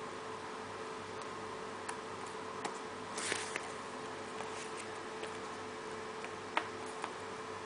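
Scattered light taps and clicks of alphabet puzzle pieces being handled and fitted into a puzzle board, a small cluster about three seconds in and a sharper tap near the end, over a steady low hum.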